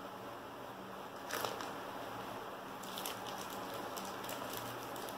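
Cloth and paper being handled: a short rustle about a second in, then light, irregular crinkling of paper sheets from about three seconds on, over steady room hiss and a low hum.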